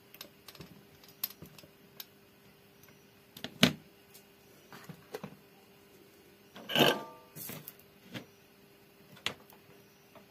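Irregular clicks and light knocks of an amplifier circuit board and small parts being handled on a workbench, over a faint steady hum. The loudest is a sharp knock about three and a half seconds in, followed about seven seconds in by a short rattling clatter with a brief ring.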